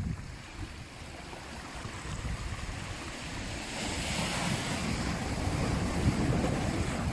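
Sea waves on a shore: steady surf noise that swells from about two seconds in as a wave builds and breaks, loudest around the middle, with a low rumble underneath.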